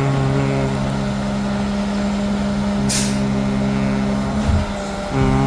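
Diesel engine of a Peterbilt McNeilus front-loader garbage truck running steadily, with a short air-brake hiss about three seconds in and a low thump shortly after.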